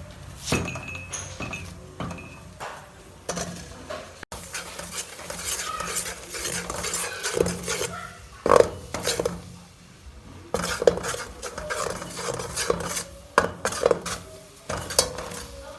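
Cooking utensils clinking and scraping against cookware in irregular clatters, as food is stirred and handled.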